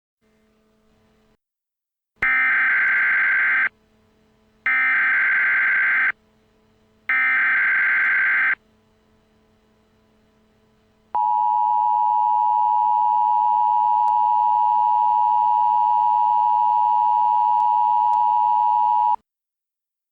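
Emergency Alert System header tones: three short bursts of warbling digital data tones, each about a second and a half long, then the two-tone attention signal held steady for about eight seconds before cutting off sharply.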